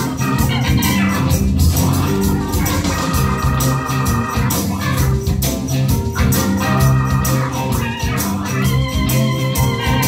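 Live band music: an organ-toned keyboard and electric guitars over bass and a steady beat, with a harmonica cupped to the microphone adding a wavering reedy line.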